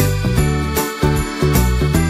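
Background music with a steady beat and a bass line that changes notes about every half second.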